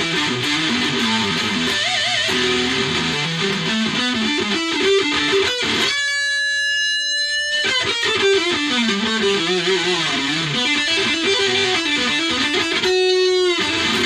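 Ibanez ART300 electric guitar played in quick single-note melodic runs with some vibrato. A clear note is held for over a second about six seconds in, and another briefly near the end.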